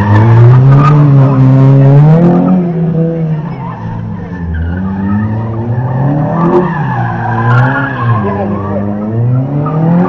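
Citroën Saxo's engine revving up and dropping back again and again as the car is driven hard through a slalom course, with tyres squealing.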